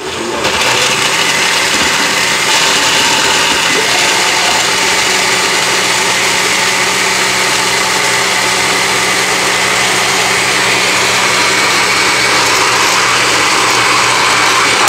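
Countertop blender switched on: its motor starts abruptly and runs steadily at full speed, blending a fruit smoothie with ice.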